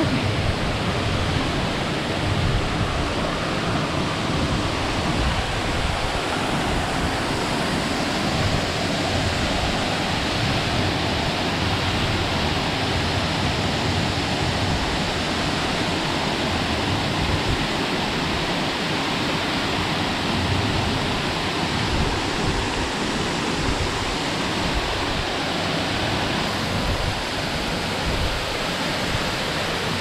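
Waterfall heard up close, near enough to throw spray: a steady, unbroken rush of falling water.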